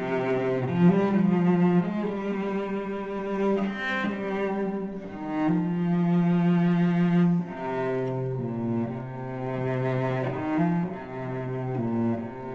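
Background music on low bowed strings, cello-like, playing long held notes that change pitch every second or two.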